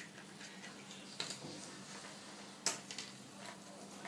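Small plastic toy animal figures being picked up and set down on a tabletop: a few light clicks and taps, the sharpest about two and a half seconds in.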